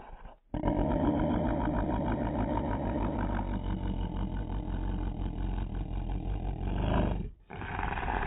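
A small Chihuahua-type dog growling, slowed down so the growl comes out as a long, deep rumble with a fine rapid pulse. It starts about half a second in, breaks off about seven seconds in, and a second growl starts near the end.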